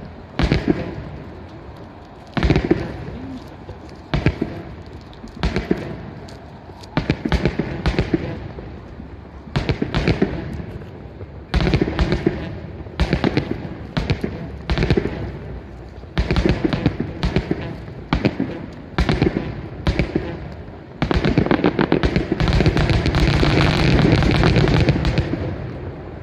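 Fireworks shells bursting in quick succession, each burst a sharp bang followed by a cluster of crackles, about every one to two seconds. About twenty-one seconds in they merge into a dense, continuous barrage that fades away near the end.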